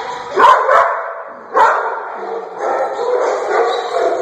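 Several dogs barking, with three sharp, loud barks in the first two seconds over a steady din of other barking.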